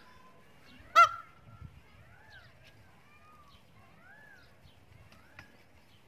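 A peacock gives a single short, loud honking call about a second in. Soft, arching chirps from other birds repeat about once a second around it.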